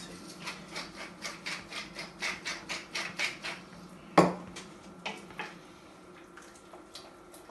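A wooden pepper mill being twisted, making a quick run of short grinding rasps, about five a second, for roughly three seconds. About four seconds in comes a sharp knock, the loudest sound, as the mill is set down on the wooden board, followed by a few light clinks of a spoon stirring in the pot.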